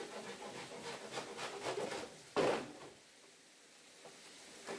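Quick scraping and rubbing strokes, then a single sharp knock about two and a half seconds in.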